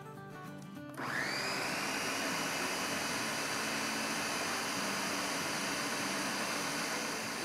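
Countertop blender switched on about a second in, its motor spinning up with a quick rising whine and then running steadily at full speed, puréeing watermelon with milk.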